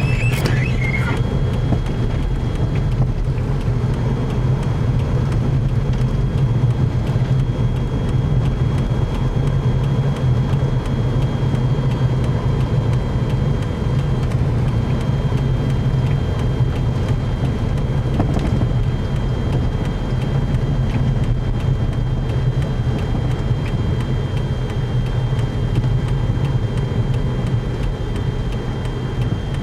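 Steady in-cabin noise of a car driving on a snow-covered road: a continuous low engine and tyre drone, with a faint thin high tone over it.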